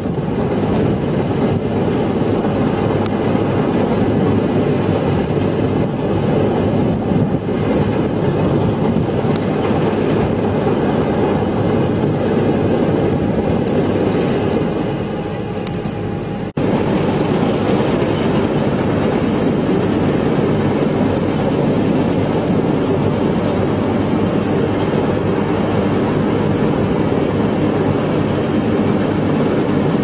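Punni Grain Cruiser combine harvester running under load while harvesting wheat, its engine and threshing and straw-making machinery making a heavy, steady noise. The sound dips and breaks off briefly about halfway through, then carries on the same.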